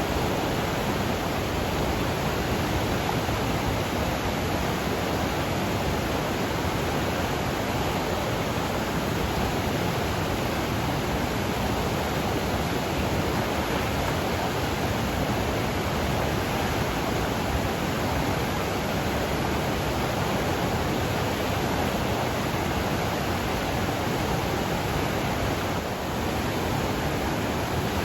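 Flooded mountain river rushing high with runoff: a steady, full roar of fast water.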